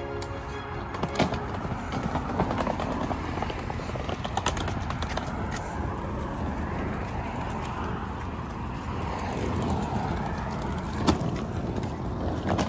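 A suitcase being wheeled along pavement, its wheels rumbling with irregular clacks and knocks, over steady road traffic noise.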